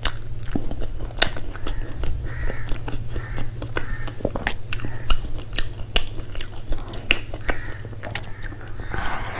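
Close-miked chewing and biting of food eaten by hand, with irregular sharp clicks and crunches, over a steady low hum.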